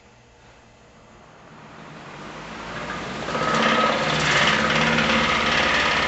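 1965 Emerson electric table fan spinning up, growing louder over about three seconds, then running steadily and noisily. Its bent blades throw it off balance.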